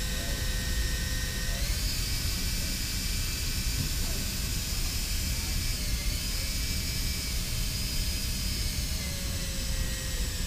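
Cordless drill spinning a greased acme threaded rod through its nut to spread the grease along the thread. The motor whines steadily, rising in pitch about two seconds in and dipping briefly a couple of times as the speed changes.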